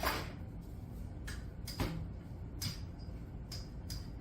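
About six light, irregular knocks and clicks of a kitchen utensil against a skillet, some with a short metallic ring, over a steady low hum.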